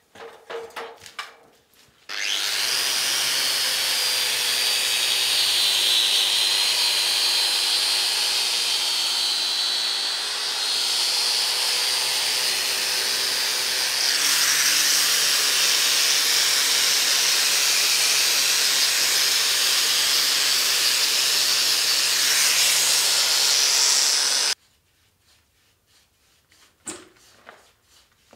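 Angle grinder grinding rust and flaking scale off an old steel I-beam. It runs continuously with a steady high whine for over twenty seconds, then stops abruptly.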